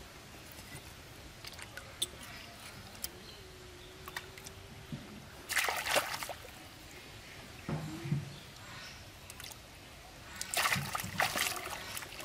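Bare hands digging and scooping in soft wet mud, squelching and splattering in two bursts, about halfway through and again near the end, with small wet clicks between.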